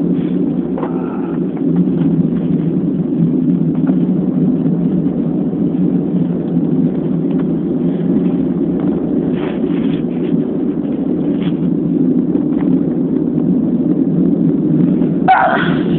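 Steady low outdoor rumble on a phone's microphone, then a person's sneeze near the end.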